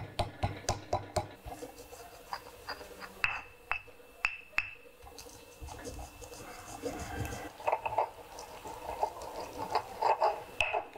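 Stone pestle pounding and grinding garlic, shallots, candlenut and white peppercorns in a stone mortar to make a spice paste. It starts with quick tapping, about four or five strikes a second, then gives a few louder separate knocks, and turns to scraping, grinding strokes with more knocks in the second half.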